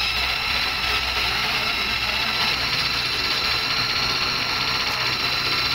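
Motor-driven wire brush wheel running steadily, with a low hum and a hiss. The brass cage of a roller bearing is held against the brush to clean it.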